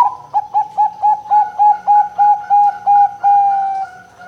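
Zebra dove (perkutut) singing: a quick string of about a dozen short, clipped coos, roughly four a second, ending in one longer drawn-out note that sags slightly in pitch.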